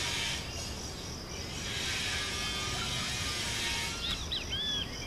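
Steady buzzing insect chorus, with a brief bird song of several quick whistled notes about four seconds in.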